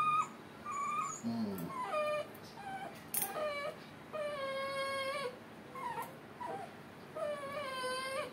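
Puppy whining and whimpering while its cropped ear is stitched: a string of short high cries, then two long drawn-out whines around the middle and near the end. The vet puts the crying down to the puppy simply being a crier.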